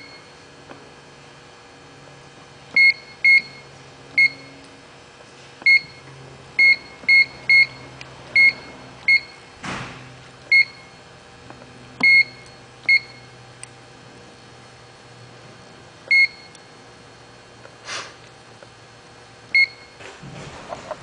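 Keypad of a Sony LH75 grinder control beeping as its keys are pressed: about fourteen short, high single beeps at irregular intervals, over a faint steady low hum.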